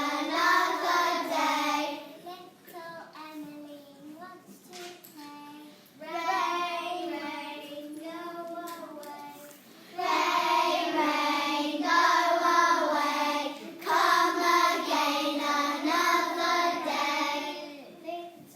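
A class of young children singing a song together, softer for a few seconds and then louder again about halfway through.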